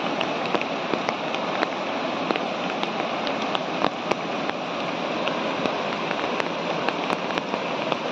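Heavy rain falling in a steady hiss, dotted with frequent sharp ticks of single drops landing close by.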